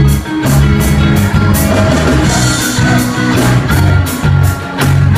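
Live rock band playing loudly: electric guitars over a bass guitar line and a drum kit keeping a steady beat on the cymbals, with a longer cymbal wash about two seconds in.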